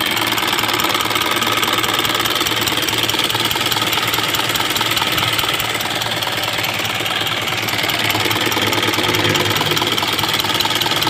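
Isuzu 4HL1 four-cylinder diesel engine idling steadily and evenly.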